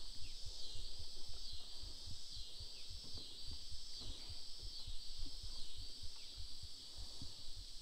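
Steady chorus of insects, a high buzz that swells and falls about once a second, over soft low knocks and rumble.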